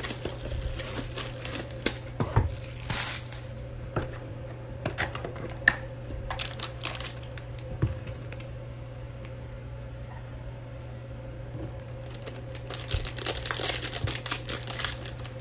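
Trading card pack wrappers being crinkled and torn open, with cards handled, in several bursts and a quieter pause in the middle, over a steady low hum.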